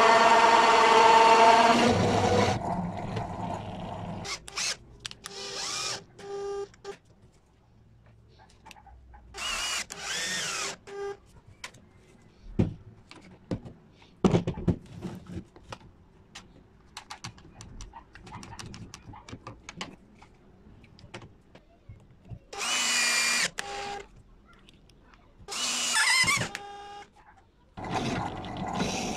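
A power tool motor runs with a steady whine, then stops about two and a half seconds in. Scattered clicks and knocks follow, along with several short bursts of higher-pitched tool noise, each about a second long.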